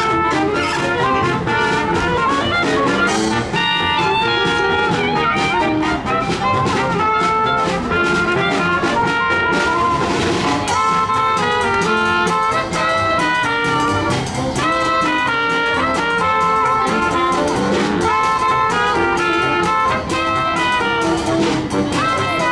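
A small Dixieland jazz band playing live, with trumpet and clarinet among its horns, in a steady, unbroken run of lively brass-led music.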